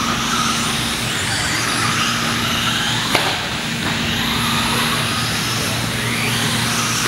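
Team Losi Mini-T electric RC stadium trucks racing, their motors whining and rising and falling in pitch as they accelerate and slow through the corners. There is a single sharp click about three seconds in, over a steady low hum.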